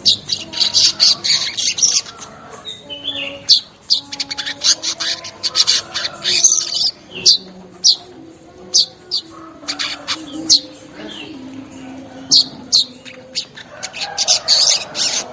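Weaver birds (manyar) calling: a run of short, sharp chirps repeated every half second or so, broken by bursts of rapid chattering song near the start, in the middle and near the end.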